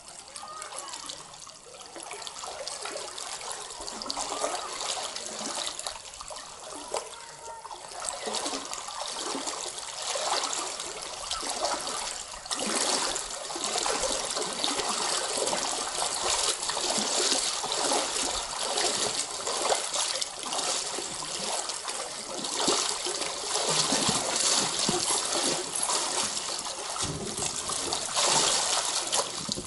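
Water sloshing and splashing around the legs of two people wading waist-deep and pushing a paddle board, building up over the first ten seconds or so and then staying loud.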